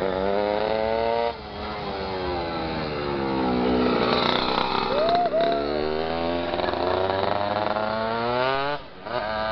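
Motorcycle engine revving hard, its pitch climbing and then breaking off about a second in. It runs on with the pitch sagging and then climbing steadily again, and cuts off shortly before the end.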